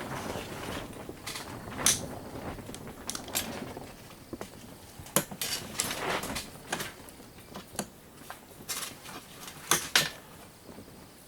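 Plastic and small metal parts of a surge protector clicking and clacking as they are handled and pulled apart, in irregular sharp knocks with some rustling between them.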